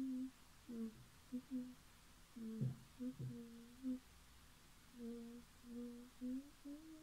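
A person humming a tune quietly, in a run of short held notes with brief gaps between them.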